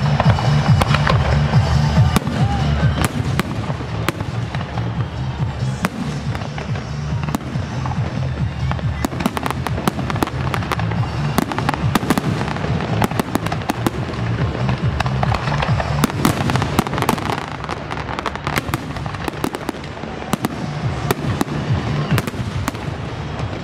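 Fireworks going off: a rapid, irregular series of sharp cracks and pops, densest in the middle, over bass-heavy music playing from loudspeakers.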